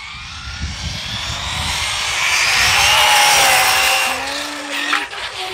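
ARRMA Typhon 6S 1/8-scale electric buggy with a Hobbywing MAX8 ESC and 4274 2200kV brushless motor on a full-throttle speed run. The motor whine rises in pitch as the buggy accelerates and grows louder, with tyre and road noise, to a peak about three seconds in as it passes. It then drops in pitch and fades.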